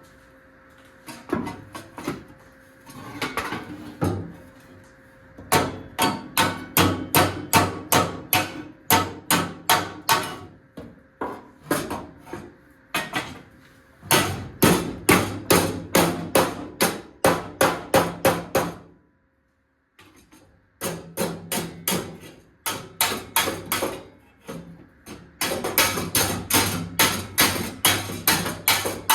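Hammer striking the sheet-steel cowl panel of a 1979 Plymouth Volare in quick runs of blows, about three a second, while the panel rings. The panel is being knocked down to line up with the firewall before welding. The hammering stops briefly about two-thirds of the way through.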